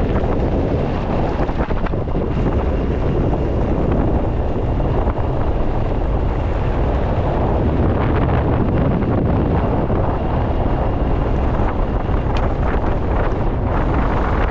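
Steady, loud wind buffeting the microphone, a dense low rumble with no distinct events.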